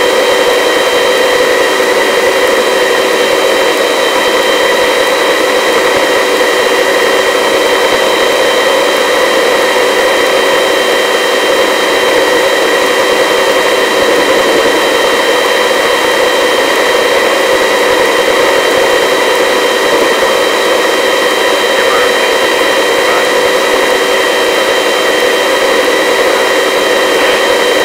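Helicopter turbine engine and rotors running steadily in a low hover: an unchanging whine made of several constant tones over a steady rushing noise.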